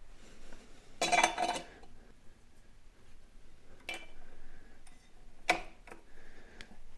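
Metal clinking of a SRAM 12-speed bicycle cassette's steel sprockets as it is handled and slid onto the trainer's XDR freehub. A ringing clatter comes about a second in, then a few single sharper clicks.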